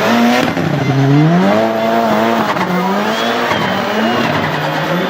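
Tuned, turbocharged Nissan 200SX engine revving up and down several times under load, with a brief tyre squeal about three seconds in.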